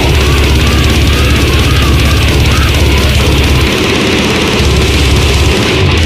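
Loud extreme metal music: a dense wall of distorted guitars, bass and drums, with a wavering high pitched line over the first three seconds.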